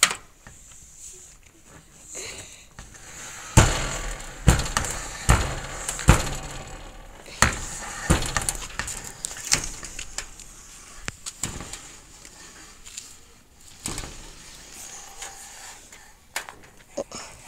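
A run of sharp wooden knocks and clunks, about one a second from a few seconds in, then lighter clicks: a bamboo pole knocking against the frame of a laundry-drying platform as it is worked upright.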